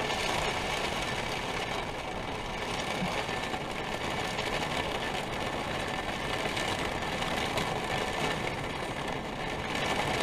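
Steady rain falling on the RV's roof, heard from inside.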